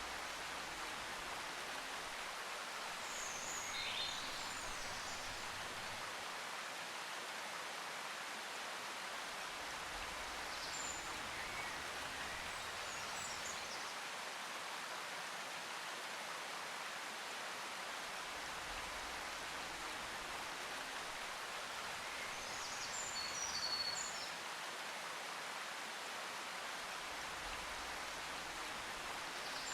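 Steady, even hiss with a few brief high chirps about 3 to 4 seconds in, around 11 to 13 seconds, and twice near 23 to 24 seconds.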